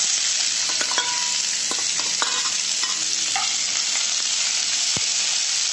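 Chopped onions sizzling in hot oil in a metal kadai, with a few light clinks and scrapes of a metal spoon stirring them.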